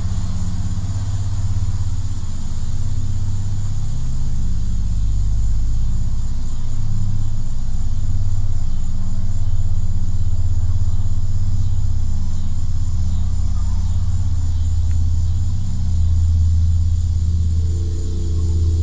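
A loud, low droning rumble with a steady hum underneath: one of the unexplained "strange sky sounds". A higher wavering tone joins near the end.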